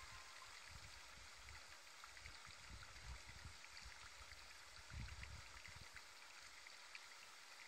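Near silence: faint outdoor room tone with a light steady hiss, scattered tiny ticks and a few soft low rumbles, the strongest about five seconds in.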